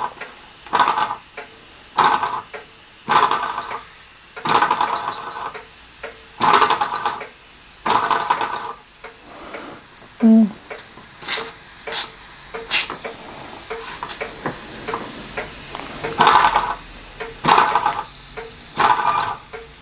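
Castle Products Model B toy steam engine being turned over by hand at the flywheel: short hisses of steam about every second or so, with a few sharp clicks around the middle. The engine is not running on its own; it turns stiffly and has not quite enough steam yet.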